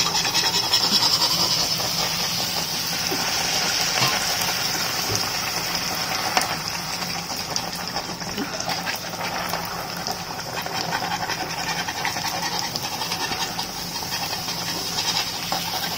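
Semolina golgappa puris deep-frying in hot oil in an iron kadai: a steady sizzle, the oil hot enough to make them puff. A few light clicks come from the metal slotted spoon against the pan.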